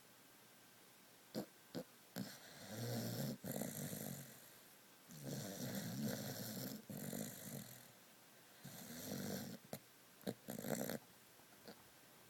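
A sleeping pet snoring: about six long snores in a row, each a second or so long, with short pauses between them and a few brief sharp sounds mixed in.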